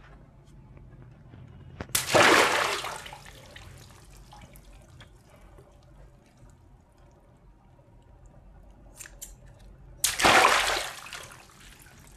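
Two water balloons cut open with scissors, each bursting with a sudden pop and a gush of water splashing out, about two seconds in and again about ten seconds in. Faint drips and handling between the bursts.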